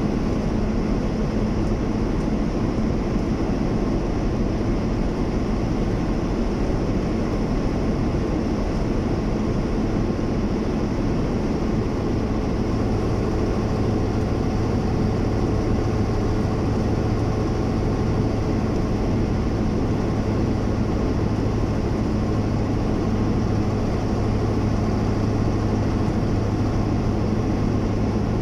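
Vehicle cruising at a steady speed on a highway: a steady low engine hum with road and tyre noise, unchanging throughout.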